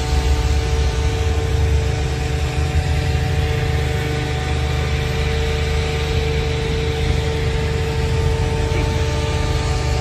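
Idling vehicle engines giving a steady low drone, with several constant humming tones over a fluctuating low rumble.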